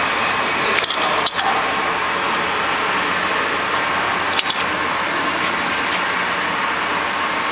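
Steel wrench clinking against the bolts and plate of a machine mould: a couple of sharp metallic clinks about a second in, another near the middle, and a few fainter taps later, over a steady machinery hum.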